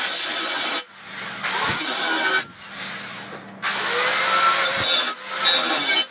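Power tool working steel in several short runs, stopping abruptly between them.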